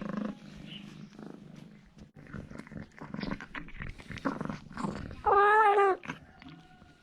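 Domestic cat purring, with scattered soft rustles, then one loud wavering meow about five seconds in, lasting just under a second.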